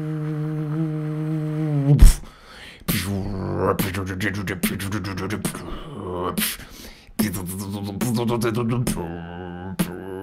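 A man beatboxing into a microphone. He holds a low bass tone for about two seconds and ends it with a sharp, loud hit, then pauses briefly. After that come rhythmic patterns of sharp snare-like clicks over low bass tones.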